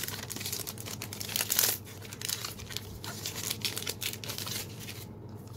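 Foil trading-card booster pack being torn open and crinkled as the cards are slid out. The crinkling is loudest about one and a half seconds in and dies down near the end.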